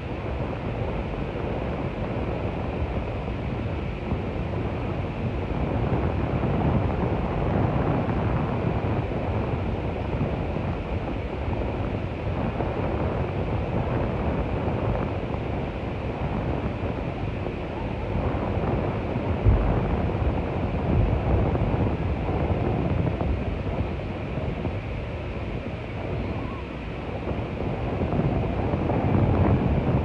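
Ocean surf washing onto a sandy beach, mixed with wind buffeting the microphone, as a steady rushing noise. A short thump stands out about two-thirds of the way through.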